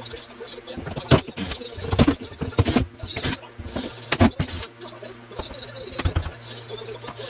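Irregular knocks, clunks and rattles of wooden layout tables and backdrop panels being handled and taken apart, over a steady low hum.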